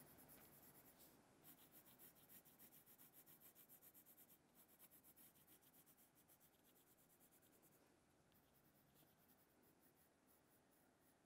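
Faint scratching of a coloured pencil shading on paper in quick, repeated back-and-forth strokes, fading over the second half.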